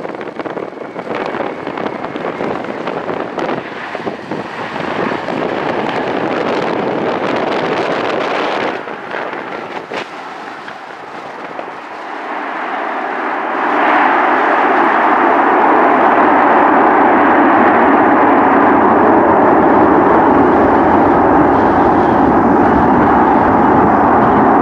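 A C-17 Globemaster III's four Pratt & Whitney F117 turbofan engines landing and rolling out on the runway. At first a jet rumble with wind buffeting the microphone; about halfway through it swells into a loud, steady engine roar.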